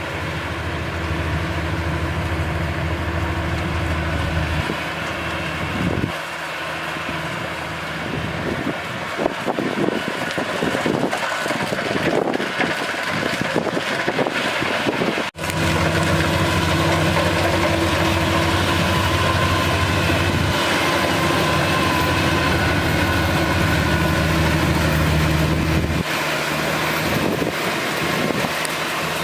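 Kubota DC-35 combine harvester's diesel engine running with its machinery working. The sound is rougher and more uneven through the middle, breaks off for an instant about halfway, then goes on louder and steadier.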